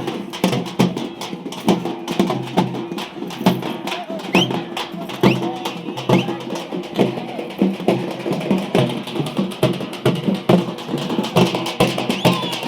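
Drums beaten fast and densely, a steady stream of sharp strokes with no pauses.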